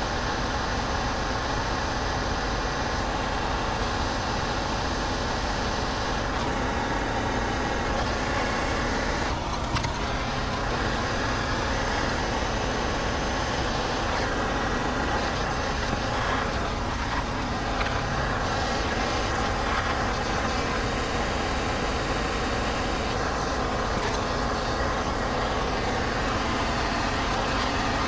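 Hand-held gas torch burning with a steady rushing noise as its flame heats a stainless steel rod to red heat so it can be bent to a right angle.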